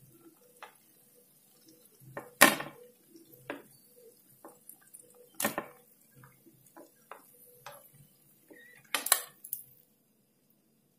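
A metal utensil clinking and knocking against a non-stick frying pan as fried banana fritters are lifted out of the oil: several sharp clinks a second or two apart, the loudest about two and a half seconds in.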